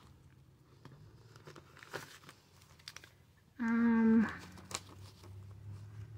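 Paper banknotes being handled and shuffled: soft crinkling with scattered small clicks. A little past halfway a person gives a short, steady hum lasting under a second.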